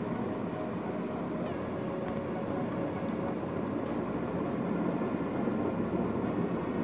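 Vegetable pakoras frying in hot oil in a pan, a steady sizzling and bubbling, with a few faint clicks of metal tongs turning them.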